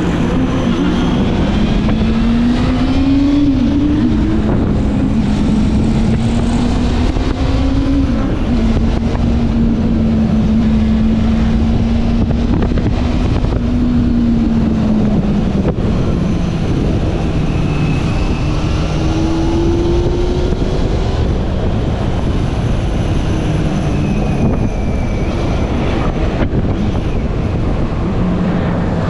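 Honda CB400 Super Four Revo's 399cc inline-four engine on its stock exhaust, running on the move. Its pitch climbs over the first few seconds, holds fairly steady, then drops back about halfway through as the throttle eases.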